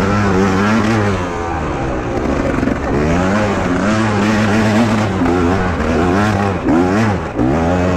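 Beta 300 two-stroke enduro motorcycle engine revving hard and easing off over and over as it is ridden, its pitch rising and falling every second or so, with two short throttle cuts near the end.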